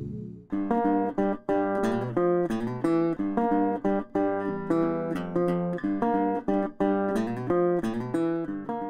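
Background music: a plucked guitar playing a quick run of short notes, starting about half a second in.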